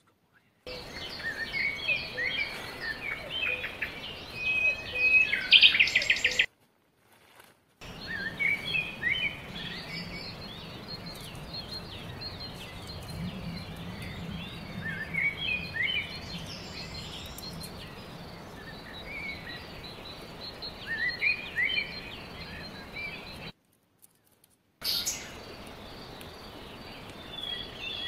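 Small birds chirping and twittering, many short calls rising and falling in pitch over a light background hiss, with a quick run of clicking notes about six seconds in. The sound cuts out to silence twice for about a second.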